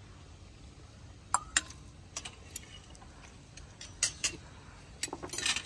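Scattered light clicks and clinks of cutlery and dishes being handled at a dining table, two sharper clinks about a second and a half in and a quick run of small clicks near the end.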